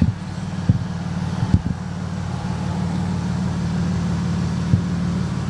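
Car engine running steadily with a low hum, a few short knocks over it.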